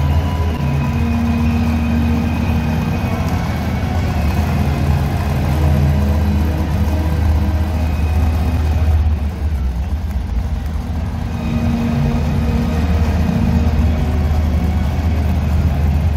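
Heavy vehicle engines running with a loud, steady low drone as a wheel loader tows a disabled monster truck across the arena floor.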